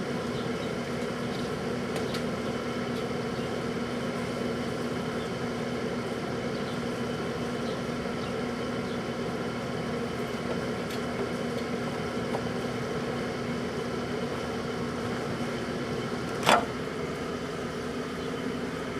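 Microwave oven running with a steady hum while heating a bottled protein drink, with faint ticks now and then and one sharp pop near the end.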